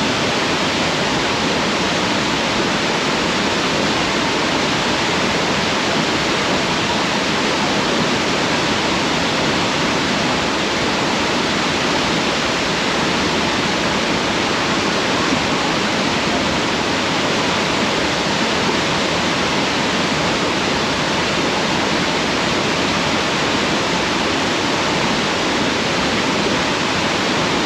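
Loud, steady rush of a waterfall pouring into its pool, heard close by.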